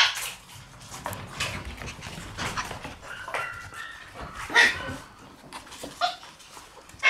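Shiba Inu puppies yipping and whining as they play, in short scattered calls. A louder yip comes about four and a half seconds in.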